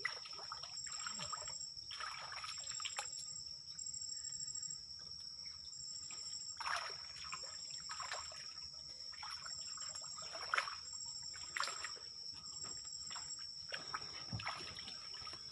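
Water splashing and sloshing in several separate swishes, the loudest about ten seconds in, as a man wades chest-deep in a mangrove creek hauling up a sunken fishing net. Under it runs a steady high-pitched insect drone, with a second, higher insect call pulsing about once a second.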